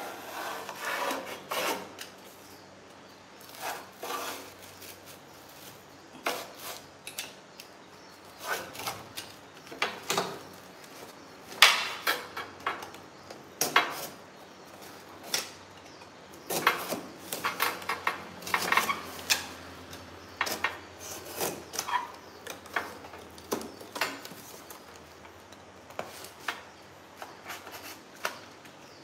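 Utility knife slicing through cardboard in a run of short, irregular scraping strokes, some louder and sharper than others.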